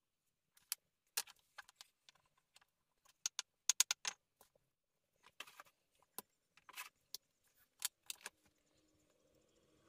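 Stones clicking and scraping against one another as they are fitted by hand into a stone-and-mud mortar wall: a string of irregular sharp taps, densest a little before halfway.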